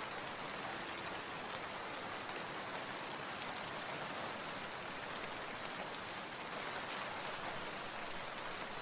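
Steady rain falling: an even, unbroken hiss of many drops, with a few individual drops standing out now and then.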